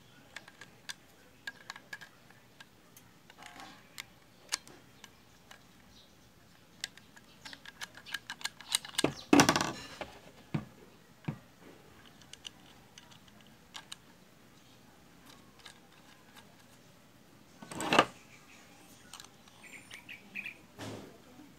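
Small metal parts of a hand rivet tool clicking and clinking as it is taken apart and put back together by hand, with screws and nozzle pieces handled on a tabletop. Scattered light clicks, a quick run of rattling clicks about halfway through, and a single louder clunk about three-quarters of the way in.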